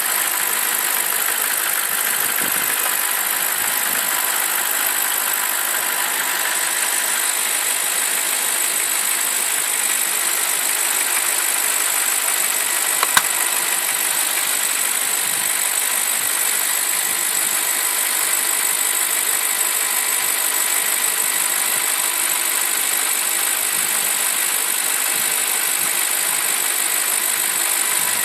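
BMW 745i's N62 V8 engine idling steadily, with one sharp click about thirteen seconds in.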